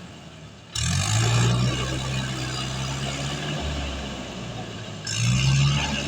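Heavy diesel engine running steadily. The sound jumps abruptly louder about a second in, and again near the end, where the hum sits slightly higher in pitch.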